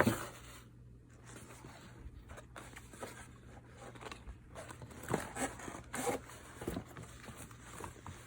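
A backpack being handled: a sharp knock at the start, then scattered rustling and scraping of its material, busiest about five to six seconds in.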